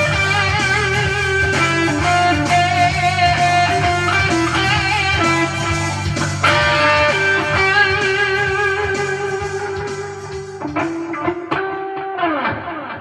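Gretsch G2622T Streamliner electric guitar being played: a lead line of held, wavering notes over steady low tones, ending with a note sliding down in pitch before the sound fades out.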